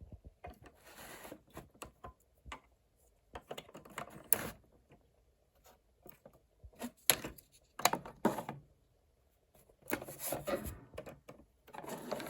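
Hard plastic toy parts being handled: irregular clicks, taps and light rattles with short scraping rustles, coming in clusters with brief pauses between.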